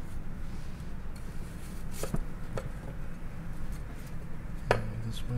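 Chef's knife cutting a peeled white radish on a wooden cutting board: a few sharp clicks of the blade on the board, a cluster about two seconds in and a louder one near the end, over a steady low hum.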